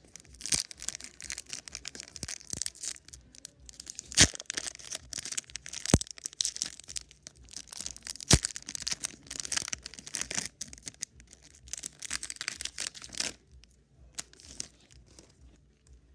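A foil Pokémon Celebrations booster pack crinkling and being torn open. Three sharp snaps stand out about 4, 6 and 8 seconds in, and the crinkling stops about 13 seconds in.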